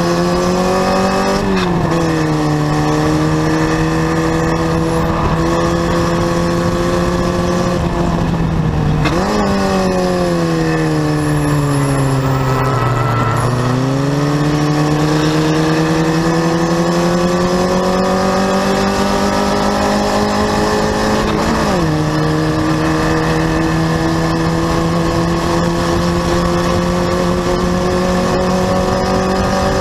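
Onboard sound of a Formula Vee's Volkswagen 1600 air-cooled flat-four at racing speed, with wind and road noise. The revs drop sharply about a second and a half in and again near 22 s as it shifts up. Near 9 s they jump, then fall steadily as the car slows for a corner, before climbing again under acceleration.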